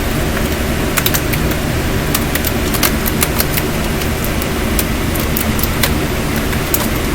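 Steady mechanical hum and hiss with scattered small clicks and taps over it.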